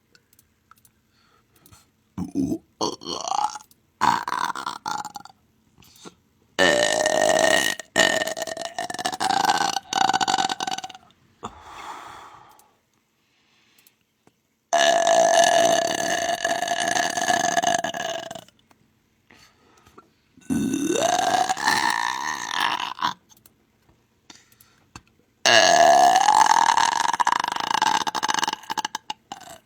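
A person belching: a few short burps, then four long, loud, drawn-out belches of about three to four seconds each, with pauses between them.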